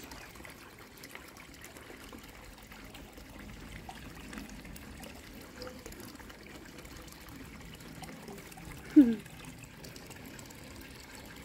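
Water trickling steadily into a garden koi pond. About nine seconds in, one short falling voice-like sound stands out.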